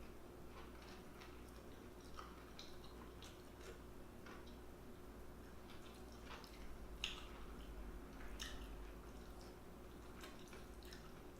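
Faint, close-up eating sounds: scattered wet mouth clicks and smacks of someone chewing food, with one sharper click about seven seconds in.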